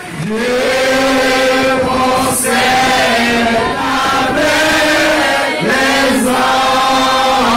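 A group of voices singing a chant together in long held notes, phrase after phrase with short breaks between them.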